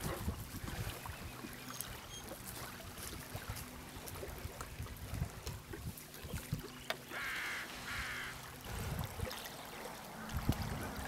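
Lakeshore ambience: wind rumbling on the microphone and small waves lapping on the shore, with a bird calling twice in quick succession about seven seconds in.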